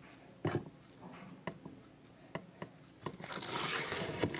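Plastic slime containers being handled: a dull knock about half a second in, a few light clicks, then a rustling scrape about three seconds in.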